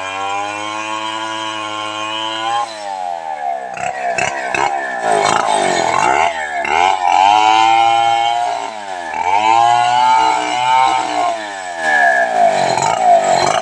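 Stihl 070 two-stroke chainsaw cutting into a large log. Its engine runs at a steady pitch at first, then from about three seconds in the pitch repeatedly dips and climbs again as the chain bites into the wood.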